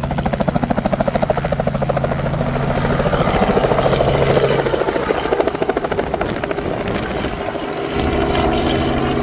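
Helicopter running close by, its rotor blades beating in a rapid, even chop over a steady engine and turbine tone.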